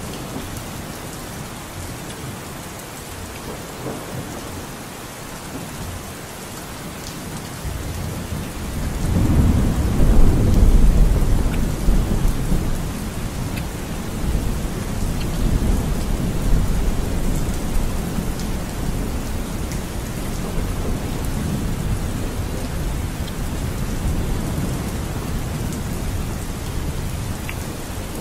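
Steady rain falling, with a long roll of thunder that swells about a third of the way in and rumbles on, slowly fading.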